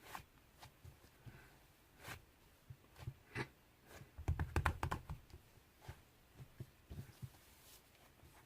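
Cloud slime being squeezed and stretched by hand, giving quiet scattered crackling clicks, with a dense flurry of crackles about four to five seconds in.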